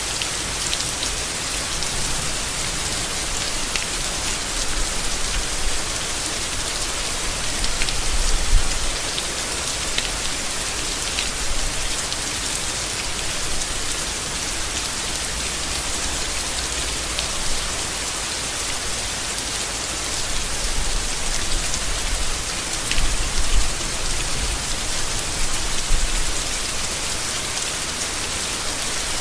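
Steady rain falling on leaves, a dense even hiss with scattered drop ticks. A few brief low thuds stand out about eight seconds in and again near the end.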